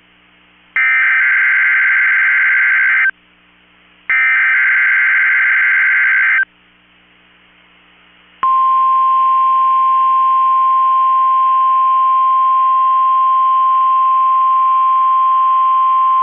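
NOAA Weather Radio emergency alert signal for a Required Weekly Test. Two harsh, buzzy SAME digital header bursts of about two seconds each play about a second apart. After a two-second pause, the steady 1050 Hz weather radio warning alarm tone starts about eight seconds in and holds as one unwavering high tone.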